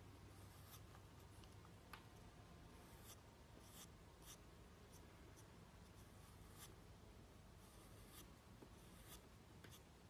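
Faint, short scratching strokes of a tool drawing lines on a porcelain surface, about a dozen at an uneven pace.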